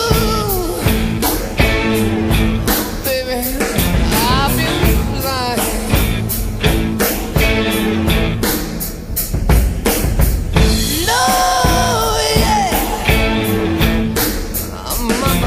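Rock music with a driving drum beat and singing.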